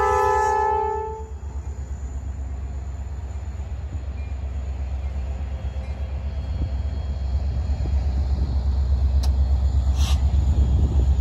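A Norfolk Southern diesel locomotive's horn chord cuts off about a second in. The locomotive's engine and wheels then rumble steadily past and grow louder, with a couple of sharp clicks near the end.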